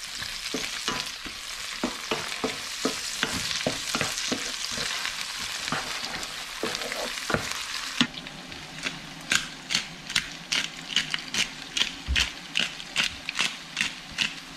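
Chopped vegetables and chorizo sizzling in a frying pan while a wooden spatula stirs and scrapes through them. About eight seconds in the sizzle drops back and the spatula strokes come through as sharp, evenly spaced knocks, two or three a second.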